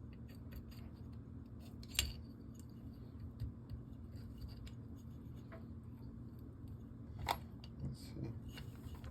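Light clicks and taps of small metal AR-15 trigger parts being handled and fitted into the lower receiver during an Anvil forced-reset trigger install, with two sharper clicks, about two seconds in and after seven seconds.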